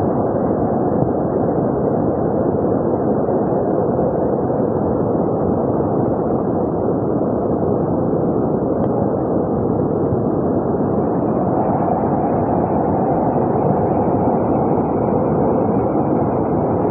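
Floodwater rushing past in a steady, loud torrent.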